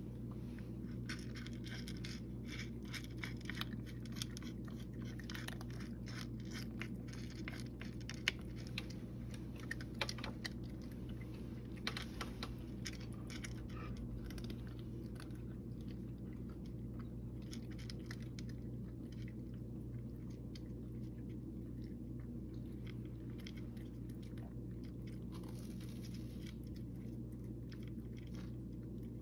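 A cat crunching dry kibble: a quick, irregular run of small crunches, thickest in the first half with a few louder ones in the middle, over a steady low hum.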